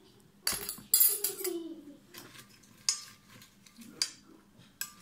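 A spoon clinking and scraping against a glass salad bowl as the salad is stirred, with several sharp clinks. There is a dull thump about half a second in, as the plastic dressing bottle is set down.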